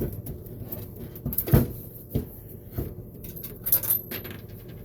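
Irregular metallic clinks, taps and knocks from handling the metal case of a radial arm saw's motor while a washer that has fallen down inside it is fished out; the loudest knock comes about a second and a half in, with a run of small quick clinks near the end.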